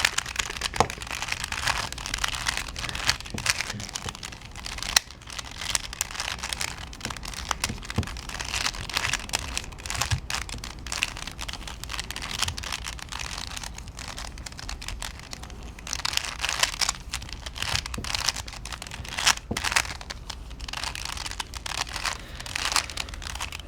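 Plastic twisted Rubik's Cube being scrambled by hand: layers turned in quick succession, giving a continuous run of clicks and scraping rattles.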